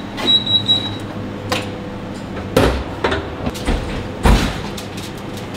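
A combi oven's door is opened and a foil-covered metal tray is taken out, giving several sharp metal clanks and knocks. A short, broken high tone sounds near the start, over a steady background hum.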